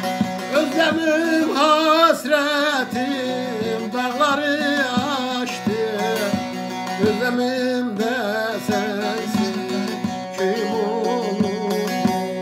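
Man singing a Turkish folk song (türkü) in a wavering, heavily ornamented voice while strumming a bağlama (long-necked saz), whose strings ring steadily beneath the voice. The singing thins out briefly after about nine seconds, then returns.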